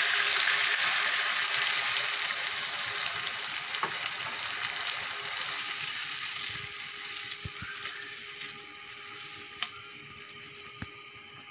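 Sizzling in a wok of carrots and peas fried in ghee as a glass of water goes in, the hiss dying away gradually as the pan cools. A spatula stirs the pan, with a few light taps against it.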